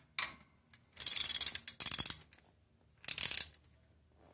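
Socket ratchet wrench clicking in four quick runs as a gearbox drain plug is tightened, the longest run about a second in.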